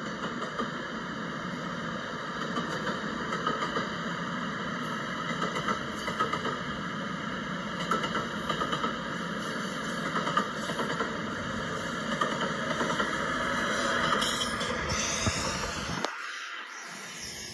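LEGO City passenger train (60197) running on plastic LEGO track: a steady motor whir with the wheels rattling irregularly over the track. It grows louder as the train comes close, then fades just before the end.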